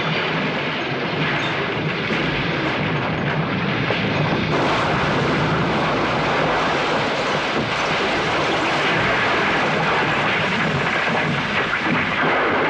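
Ithaca Central Railroad train rolling past with a steady rumble.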